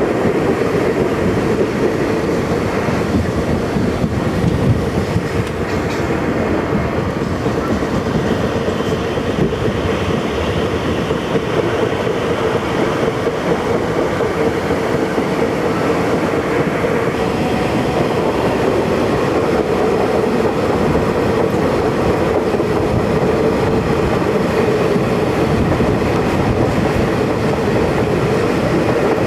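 Amtrak Desert Wind passenger train running, heard from an open vestibule: a loud, steady rumble of the wheels on the rails with a steady hum running through it.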